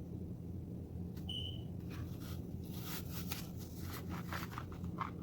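Light clicks and clatter of a piece of air-fried apple being taken out and handled, over a steady low hum, with a brief high beep about a second in.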